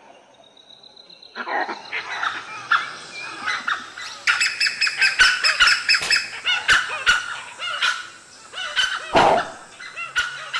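A pack of dholes calling in rapid, overlapping high-pitched yelps and whistling chatter, as they mob a leopard they have treed. One louder call comes near the end.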